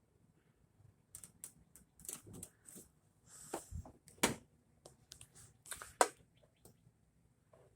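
Irregular light clicks, taps and knocks, with a brief rustle; the loudest knocks come about four and six seconds in.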